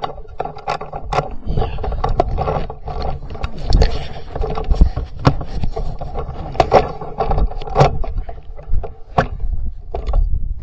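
Handling noise of a rifle and its scope-mounted camera being moved and repositioned: a run of scrapes, knocks and clicks at irregular intervals over a low rumble.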